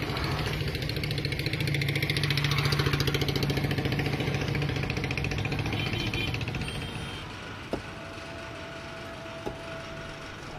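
A motor vehicle engine running close by with a fast, even firing beat. It swells to its loudest about three seconds in and fades away about seven seconds in, leaving a quieter steady background with two short clicks.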